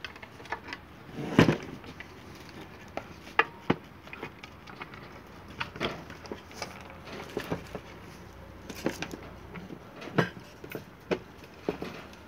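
Irregular clicks and knocks of a 100 W LED floodlight's metal housing and front glass being handled while its screws are set with a screwdriver. The loudest knock comes about a second and a half in.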